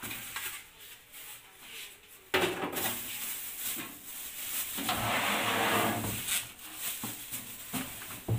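A knock, then a stretch of rustling and scraping as the packaging of a desktop computer tower is opened and pulled off.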